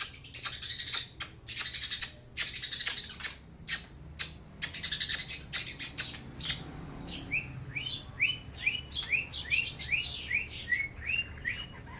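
Young long-tailed shrike singing: harsh, scratchy notes, then from about halfway a run of about a dozen short chirps, roughly two a second. Its song is said to carry imitations of lovebird and house sparrow calls.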